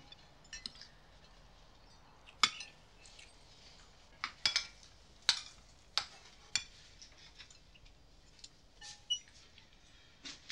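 Metal cutlery clinking and tapping against plates and dishes as people eat: about a dozen scattered sharp clinks, a few with a short ring.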